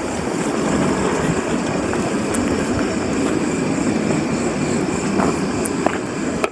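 Steady rumble and hiss of a moving vehicle that runs without a break, then cuts off abruptly at the very end.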